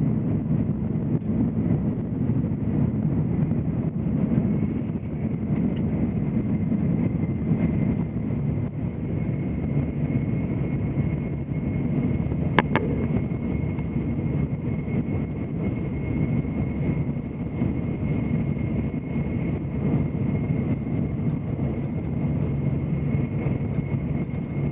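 Tokaido Shinkansen running at speed, heard inside the passenger car: a steady rumble of running noise with a faint high whine, and one short click about halfway through.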